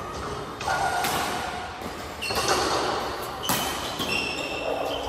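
Badminton rally: racquets hit the shuttlecock several times with sharp cracks, and sports shoes squeak in short high squeals on the court floor, echoing in a large hall.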